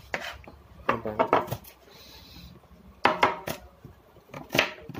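A kitchen knife knocking on a wooden cutting board while slicing vegetables, in short irregular runs of strokes.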